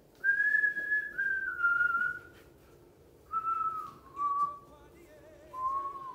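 A person whistling a slow tune: several short phrases with pauses between, each a little lower in pitch than the one before.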